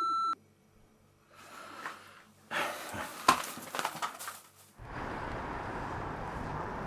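Answering machine giving one short, steady electronic beep at the end of a recorded message. Soft rustling follows, with a sharp click about three seconds in, then a steady hiss of background noise from about five seconds in.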